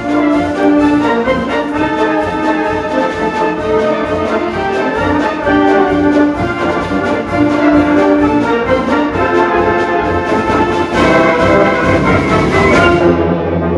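High school concert band playing, with brass leading over a steady percussion beat.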